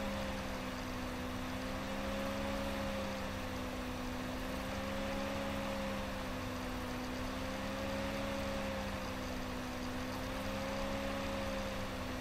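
Steady background hum with a hiss beneath it. Its few low tones waver gently up and down, about once every three seconds.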